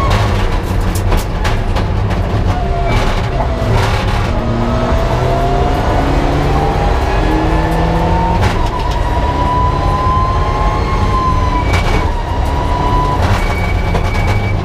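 A Mitsubishi Lancer Evolution IX rally car's turbocharged 2.0-litre four-cylinder engine, heard from inside the cabin at full effort. The engine note climbs through each gear and drops sharply at the shifts, with several sharp cracks along the way.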